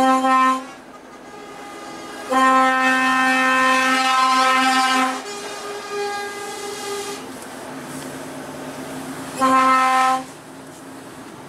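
Lorry air horn sounded in three loud blasts of one steady note: a short toot, a long blast of about three seconds, then another short toot. Fainter, lower horn notes sound between the second and third blasts.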